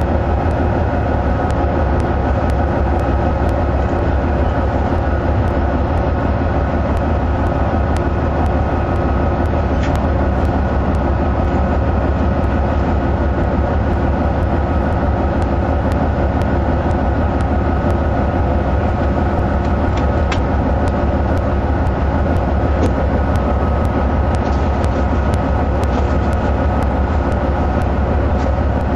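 GE C44AC diesel-electric locomotive (V16 GE 7FDL engine) running steadily, a deep, even engine sound with a steady whine over it. A few faint clicks come through now and then.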